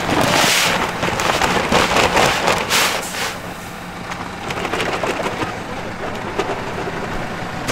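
Wheat seed pouring from a paper sack into a seed drill's metal hopper: a rushing hiss that comes in several surges over the first three seconds or so, then eases off. A low engine hum runs underneath.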